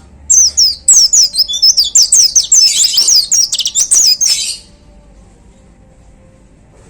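White-eye (pleci) singing a rapid burst of high, sweeping chirps for about four seconds, then stopping abruptly.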